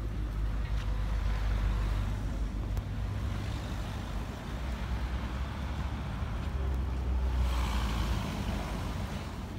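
Outdoor street noise on a snowy city street: a steady low rumble of traffic, with the hiss of a car's tyres on the snowy road swelling about three-quarters of the way through.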